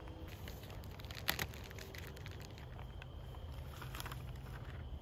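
Footsteps and a sharp knock about a second in, then newspaper sheets rustling as they are pulled apart over a steel campfire ring, over a steady low rumble.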